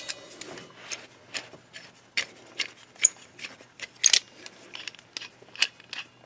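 A string of small, sharp metal clicks, about two or three a second, as the DeWalt 12-inch C-clamp locking pliers are worked by hand. The loudest click comes about four seconds in.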